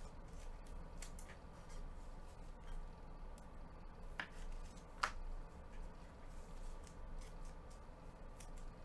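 Scattered small clicks and ticks of something being handled, with two sharper clicks about four and five seconds in, the second the loudest, over a steady low electrical hum.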